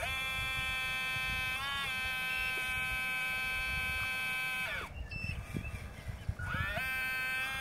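Electric drive of a model Cat 320 excavator whining as the boom and bucket move. It is a high, steady whine that dips briefly about two seconds in and falls away in pitch near the five-second mark. After a short gap with a few soft knocks, it rises again about a second before the end.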